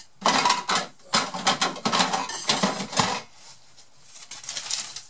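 Metal cutlery and kitchen utensils clattering as someone rummages for a knife: a dense run of clinks and knocks for about three seconds, then a few quieter clicks.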